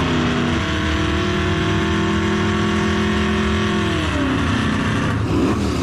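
An engine held at steady high revs, its pitch then falling away about four seconds in as the revs drop.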